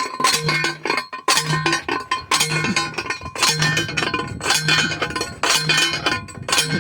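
Metal being hammered: sharp ringing clangs of metal striking metal, about one a second.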